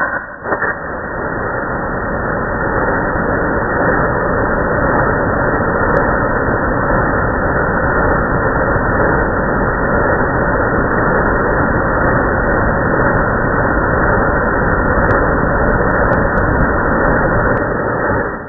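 Pressure washer running, spraying water jets from a spinning duct-cleaning nozzle head. It is a steady, loud noise that builds up over the first few seconds after a few clicks at the start, then holds even until it cuts off abruptly.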